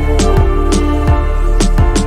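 Background music: soft instrumental with plucked notes over a steady drum beat.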